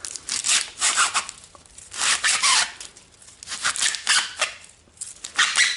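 Shiny plastic pull-bow ribbon rustling and rasping as its pull strings are drawn tight and the loops are worked into shape, in about five short bursts with brief pauses between.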